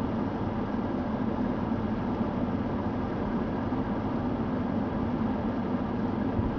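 An idling engine: a steady, unbroken low drone with a hiss over it.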